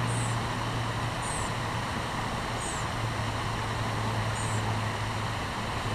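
Steady rush of flowing river water under a low, steady hum. A short, high chirp repeats about every second and a quarter.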